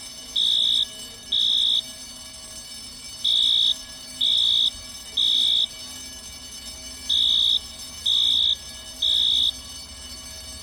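Fire alarm sounding the temporal-three evacuation signal: three high-pitched beeps, pause, three beeps again, three full groups in all, over a faint steady low hum.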